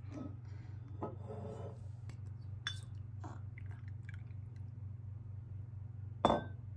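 Whisky poured from a glass decanter into a small cut-glass stemmed glass: faint liquid sounds and a few light clicks, then a sharp glass clink near the end as the decanter meets the glass, over a steady low hum.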